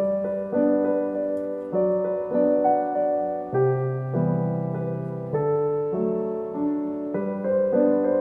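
Soft background piano music: gentle chords struck about every half second to a second and held.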